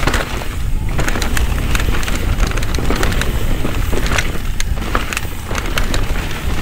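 Mountain bike riding fast over rough dirt singletrack: heavy wind rumble on the microphone, with tyre noise and frequent sharp clicks and rattles from the bike jolting over roots and rocks.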